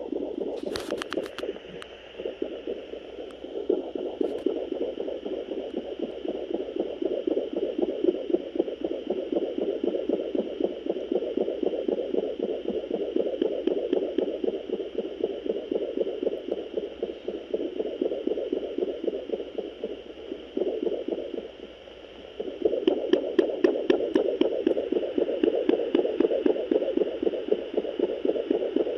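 Fetal heartbeats of puppies in a dog at day 41 of gestation, picked up by a handheld fetal Doppler and played through its speaker as a fast, even pulsing. The pulsing swells and fades as the probe moves, with a brief lull a little past two-thirds of the way through. Sharp crackles come near the start and again later on.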